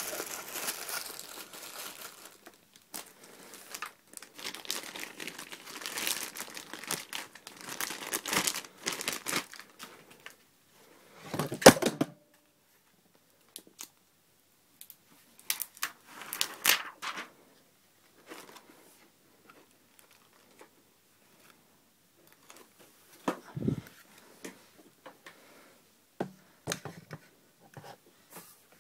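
Packaging being unwrapped: wrapping crinkling and tearing for about ten seconds, with one sharp, loud crackle near the middle. After that come scattered short handling rustles and a couple of knocks.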